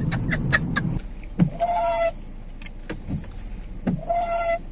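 Car driving on a wet, flooded road, heard from inside the cabin: a low road rumble that drops away about a second in. It is followed by scattered clicks and two short steady tones about two and a half seconds apart.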